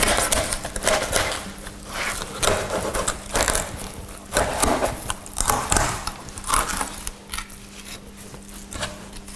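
A thin knife scraping through a zander's rib bones and along its backbone as the fillet is cut free, in a run of irregular rasping strokes. A faint steady hum runs underneath.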